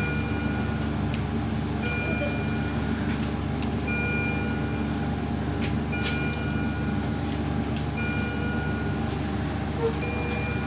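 Medical equipment alarm beeping in an intensive care unit: a short two-note beep repeating about every two seconds over a steady low machine hum, with a few clicks about six seconds in.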